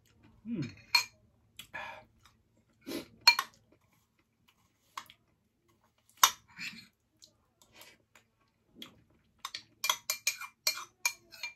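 Metal spoon clinking and scraping against a glass bowl while eating: scattered sharp taps, then a quick run of clinks near the end.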